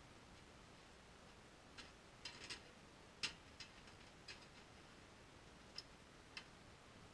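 Light metallic clicks and clinks, about eight of them at uneven intervals, the loudest a little past three seconds in, from a folding sheet-metal tent stove being fitted together.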